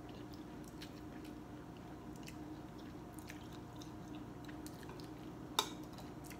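Person eating noodle soup: quiet chewing and small mouth and utensil clicks, with a sharp clink of utensils on the ceramic bowl about five and a half seconds in. A steady low hum runs underneath.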